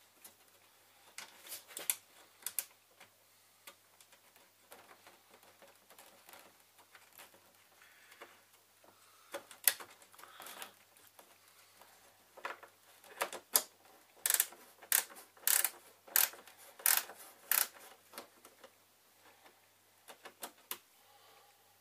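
Light taps and clicks, scattered at first, then a run of about a dozen evenly spaced sharp taps, roughly two a second, in the second half.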